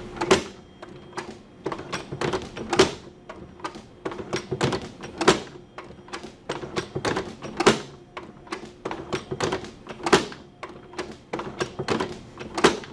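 Flexco XP hydraulic staple applicator cycling repeatedly as staple fasteners are driven and folded into a conveyor belt: many metallic clicks and clacks with a loud clack about every two and a half seconds, six in all, as each cycle finishes. A steady hum from the running hydraulic power pack underlies it.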